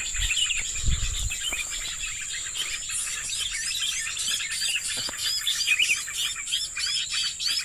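Small birds chirping and twittering in quick, busy runs of short notes over a steady high insect drone, with a brief low rumble about a second in.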